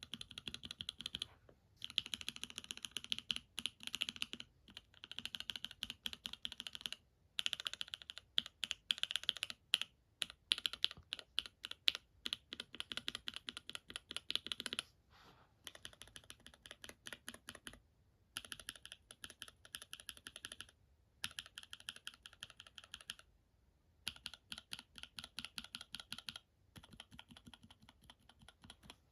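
Linear mechanical keyboard switches typed on rapidly in a keycapped switch tester: fast runs of clacking keystrokes, each run a few seconds long and broken by short pauses as the typing moves to the next switch.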